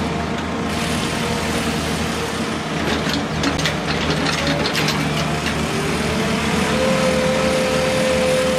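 Diesel engine of a large crawler crane running steadily. A run of sharp clicks and rattles comes between about three and five seconds in, and a steady whine joins near seven seconds.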